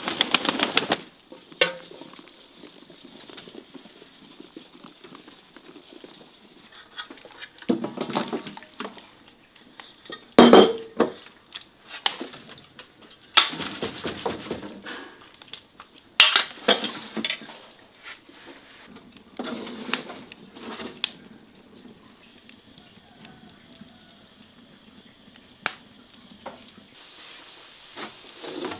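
Cookware and metal utensils being handled: short bursts of clattering and scraping every few seconds, with quieter stretches between.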